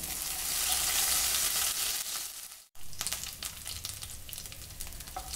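Curry leaves and crushed ginger sizzling in hot oil in a nonstick kadai as they are stirred with a wooden spatula. The sizzle is loudest for the first couple of seconds, cuts out abruptly for a moment about two and a half seconds in, then carries on quieter with many sharp crackles.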